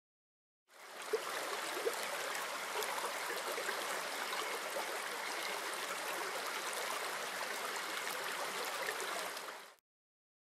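Flowing stream water, a steady even wash of moving water that fades in just under a second in and fades out near the end.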